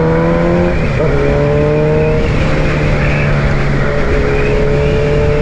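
Suzuki Hayabusa's inline-four engine running at speed under wind noise; its pitch climbs, drops as it shifts up about a second in, then holds nearly steady.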